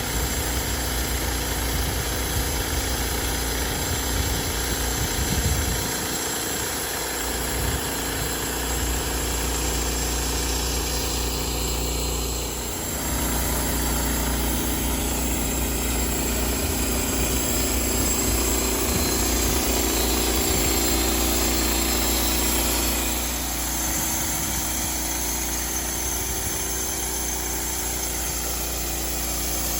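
Homemade sawmill running steadily with its engine going, its sound shifting briefly about twelve seconds in and again a little past twenty seconds.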